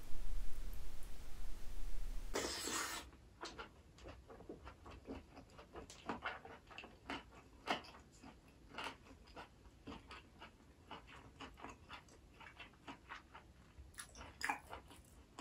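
Close-miked chewing of a mouthful of braised green-onion kimchi with pork belly and tofu: many short, irregular wet clicks and smacks. For the first couple of seconds a louder steady hiss with a low hum is heard, then cuts off suddenly.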